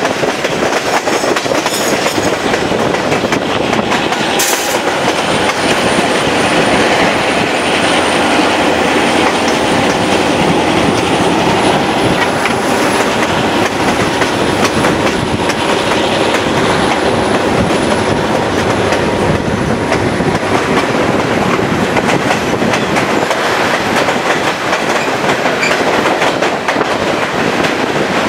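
Chepe passenger train's wheels running on the rails, a loud steady rolling noise heard from an open coach window. A thin, high, steady wheel squeal sets in about five seconds in as the train rounds a curve, with a single sharp click just before it.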